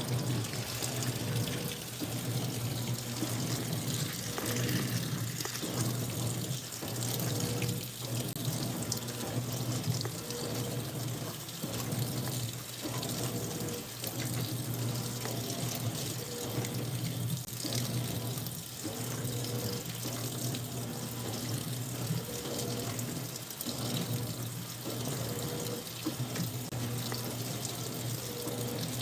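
Maytag top-load washing machine in its wash cycle: water swishing in the tub over a steady low motor hum, pulsing in a regular rhythm about once a second. No odd noise stands out at this stage.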